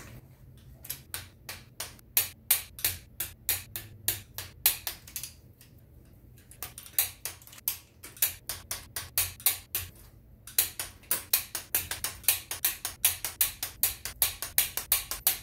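Ratchet wrench clicking in quick even runs, about five clicks a second, with two short pauses, as the cylinder-head stud nuts of a GM 3800 V6 are run down snug before final torquing.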